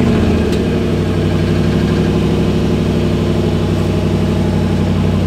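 Lexus GX470's 4.7-litre 2UZ-FE V8 idling steadily just after a cold start, through a straight-piped exhaust with the muffler deleted.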